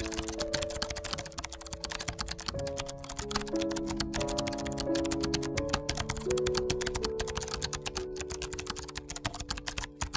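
Rapid computer keyboard typing, a quick, uneven run of key clicks, over background music of long held melodic notes.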